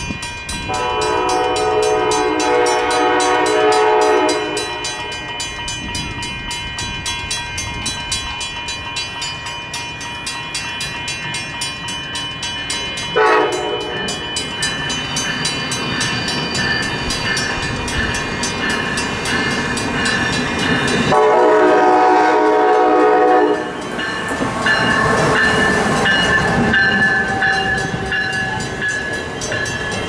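Amtrak train horn sounding a long blast, then a brief toot about nine seconds later, then another long blast, over the steady rumble and rail noise of a train running on the tracks.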